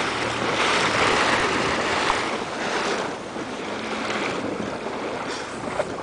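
Steady rushing of water and wind over calm sea from a moving boat, louder in the first two or three seconds and easing off after.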